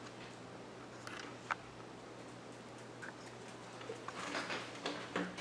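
Faint, scattered small clicks and taps of plastic Lego pieces being handled, growing busier near the end, over a steady low hum.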